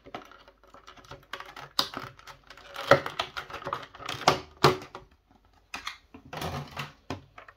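Thin clear plastic blister tray crackling and clicking as trading cards are prised out of its slots by hand: a run of irregular sharp clicks and crinkles, loudest about three and four and a half seconds in.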